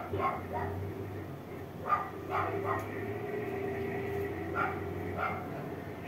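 A dog barking in short barks, about eight in all and bunched in twos and threes, over a steady low hum.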